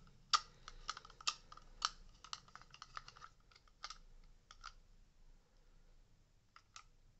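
Small screwdriver driving a screw into a Dyson V8 vacuum's plastic handle to secure the trigger switch base: a run of light clicks and ticks, densest in the first four seconds, then a few scattered ones near the end.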